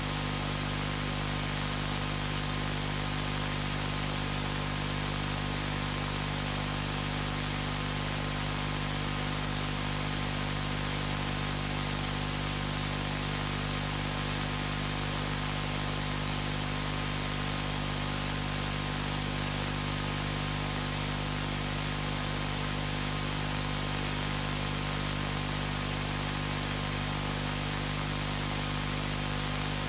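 Steady static-like hiss with a low electrical hum underneath, unchanging, with no speech.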